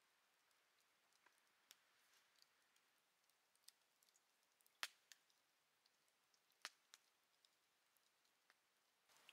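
Near silence with the faint, sparse crackle of a wood campfire: scattered small ticks, with two sharper pops about five and seven seconds in.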